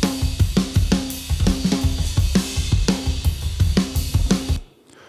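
Playback of a recorded pop-punk drum track at a fast tempo: kick, snare and cymbals on a Tama Starclassic birch/bubinga kit with 26-inch kick, miked with only four dynamic mics and mixed with compression and ambient reverb. The playback stops about four and a half seconds in.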